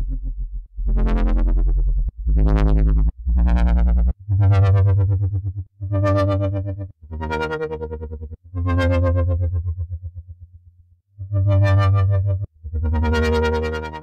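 KORG miniKORG 700S software synthesizer playing its 'Big Square' preset: a run of separate, bass-heavy monophonic notes about a second each. Some have the tone sweeping and others pulse quickly in loudness, and one note fades out just before 11 seconds in.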